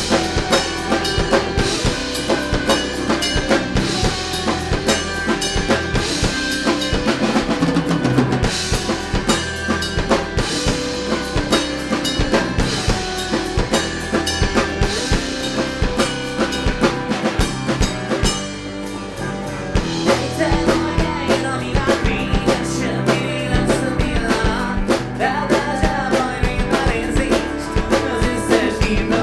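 A band playing a song, with the drum kit's bass drum and snare beating steadily under sustained pitched instruments. The playing drops back briefly about two-thirds of the way through, then comes in again.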